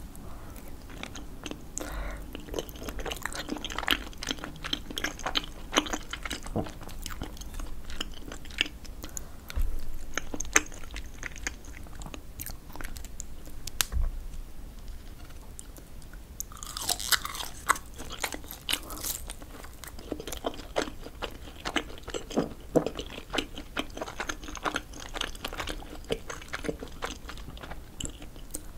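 Close-miked chewing of saucy tteokbokki rice cakes, then a crunchy bite into fried fish cake a little past halfway, which is the loudest part, followed by more chewing.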